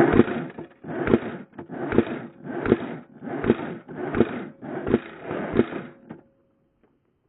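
Footsteps at a walking pace, seven crunching steps about three quarters of a second apart, each with a dull thud of the foot landing, then they stop.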